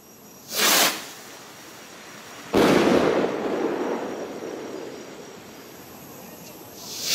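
Funke star rockets with 15 g charges being fired. A short whooshing launch comes about half a second in, and a sharp bang about two and a half seconds in, which echoes and fades over the next couple of seconds as the star shell bursts. Another rocket launches with a whoosh near the end.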